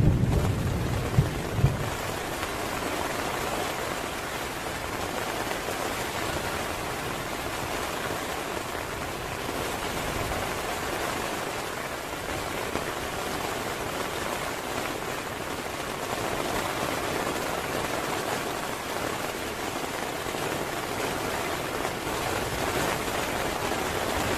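Heavy rain falling steadily, an even hiss, with two brief low thumps about a second in.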